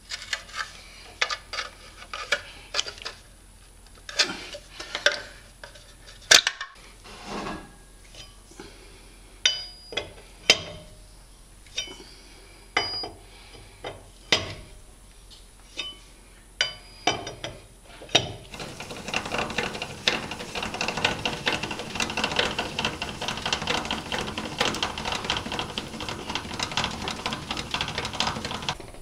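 Sharp metal clinks and knocks of hand tools on a truck wheel: a screwdriver prying off the centre cap and a lug wrench working the lug nuts, with one loud clank about six seconds in. From about two-thirds of the way in, a continuous rough rattling noise takes over.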